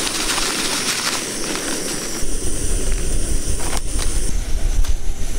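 Canister gas stove burning under a pot with a steady roaring hiss. From about two seconds in, wind buffets the microphone with a heavy, uneven low rumble, and there are a couple of faint clicks near the end.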